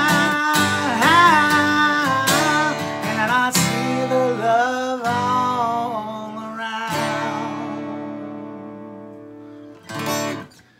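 A man sings over a strummed Takamine acoustic guitar. His voice stops about six seconds in, and a final chord is strummed about a second later and rings out, slowly fading. A brief last strum comes near the end.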